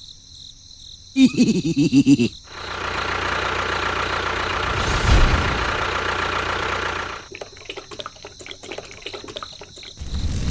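An engine runs: a brief rapid sputtering about a second in, then several seconds of steady running that swells in the middle, followed by a spell of clicking and rattling.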